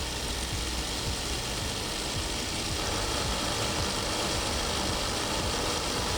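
Small belt sander running, its abrasive belt grinding relief into the underside curve of a steel form-tool blank: a steady grinding hiss over a motor hum.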